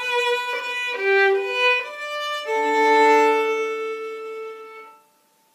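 Solo fiddle playing the closing phrase of a waltz: a few short notes, then a final pair of notes bowed together and held for a couple of seconds, fading out about five seconds in.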